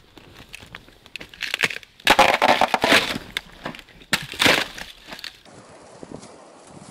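Footsteps crunching over frozen leaf litter and thin ice, with two loud cracking crunches, one about two seconds in lasting about a second and a shorter one about four and a half seconds in, as the ice breaks underfoot. Shortly after five seconds the crunching stops abruptly, leaving a faint steady hiss.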